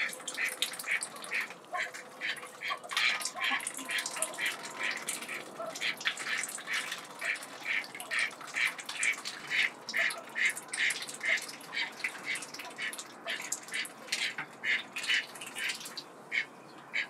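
White domestic ducks dabbling with their bills in a shallow tray of water, a quick steady run of wet slapping and slurping strokes, about three or four a second.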